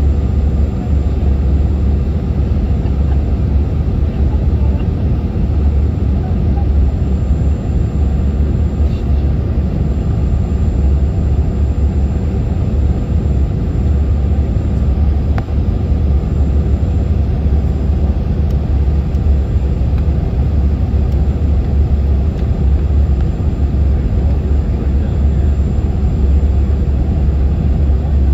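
Steady roar of an airliner cabin on approach to landing: jet engine and airflow noise, heaviest in the low rumble, with a faint high steady whine above it.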